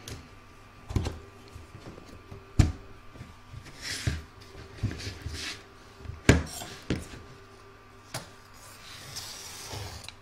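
A plastic embroidery hoop and a roll of stabilizer being handled on a cutting mat: several sharp knocks and clicks, with soft paper-like rustling of the stabilizer sheet in between.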